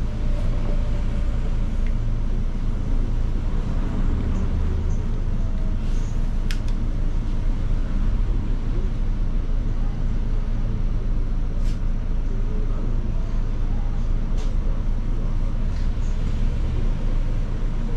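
Inside a city bus cabin: a steady low rumble of engine and road noise, with a few sharp clicks now and then.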